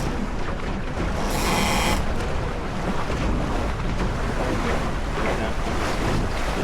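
Wind buffeting the microphone and water rushing along the hull of a Flying Scot sailboat under sail, a steady rumbling rush. A brief louder hiss comes about a second and a half in.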